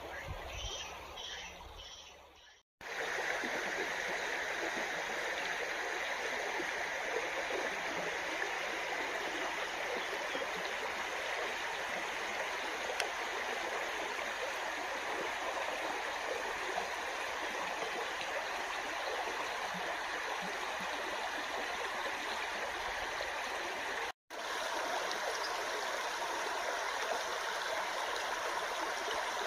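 Shallow river running over a pebble bed: a steady rush and babble of water. It cuts out abruptly twice, about three seconds in and again towards the end.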